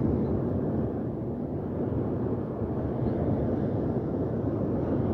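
Steady low rumble of wind on the microphone mixed with small waves breaking on a shingle beach, swelling gently now and then.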